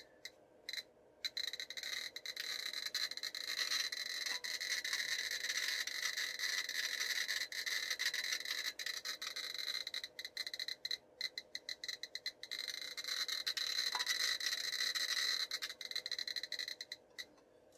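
GQ GMC-320 Plus Geiger counter beeping once per count, a rapid stream of short high clicks while it rests on a uranium-glazed orange plate. The fast rate is the plate's radioactivity, around 392 counts per minute. The clicks start sparse and thin out again near the end as the counter is lifted off the plate.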